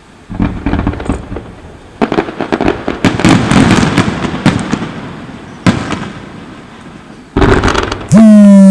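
Fireworks going off: crackling bursts and pops, dense for a few seconds, with a sharp bang and then a louder burst. Near the end a very loud, steady, distorted tone starts and drowns them out.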